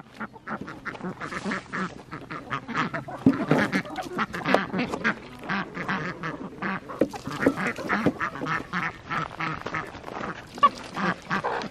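A flock of ducks and chickens calling at feeding time: constant, overlapping quacks and squawks from many birds hungry for their evening feed.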